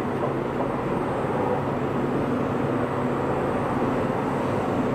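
Biscuit production line machinery, rotary moulder and conveyor belts, running: a steady mechanical hum with no distinct beats or strokes.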